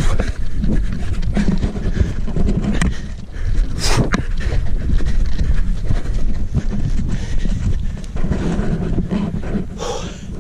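A man running hard over rough grass while holding the camera, breathing heavily, with scattered thuds of footfalls and a low rumble of wind and handling noise on the microphone.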